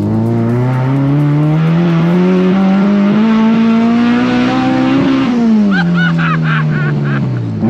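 Honda K24 2.4-litre four-cylinder in a K-swapped EK Civic, heard from inside the cabin, with a loud exhaust. It revs up hard in one smooth climb for about five seconds, then winds back down. A passenger laughs excitedly near the end.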